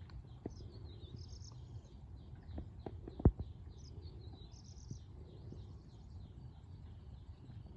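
Birds chirping continuously in rapid repeated notes, with a few faint clicks and one sharp knock about three seconds in.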